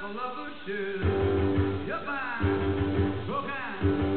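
Guitar music playing back from a cassette on a Technics RS-BX727 three-head cassette deck. Several guitar notes bend in pitch over a steady bass line.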